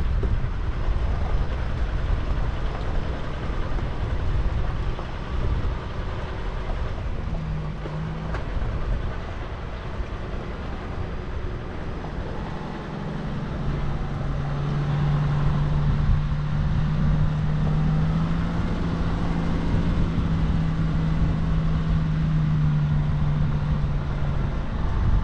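A 4x4 vehicle driving, its engine running under a steady low rumble; about halfway through the engine settles into a steady drone at constant pitch.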